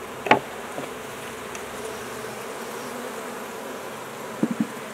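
Honeybees buzzing steadily around an open hive. A sharp knock comes about a third of a second in and a few lighter knocks come near the end, as a wooden frame is handled against the nuc box.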